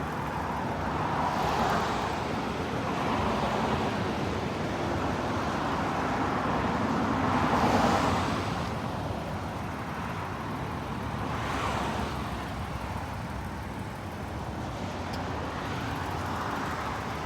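Road traffic: a steady rush of tyres and engines, with several cars swelling up and fading as they pass, the loudest pass about eight seconds in.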